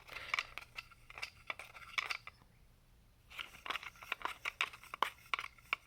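A dog working at a food puzzle box: quick clicks, taps and scrapes in two bouts, with a pause of about a second in between.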